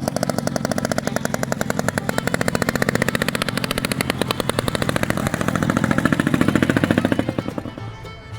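Vintage snowmobile's two-stroke engine running with a rapid, even popping from the exhaust. It grows louder about six seconds in, then drops back near the end.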